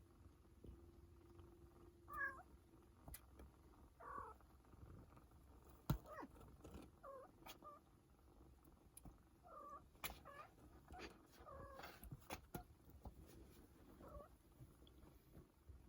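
A domestic cat making a string of short, quiet meows, several in a row, spaced about one to two seconds apart. Sharp light taps come in between, the loudest a single tap about six seconds in.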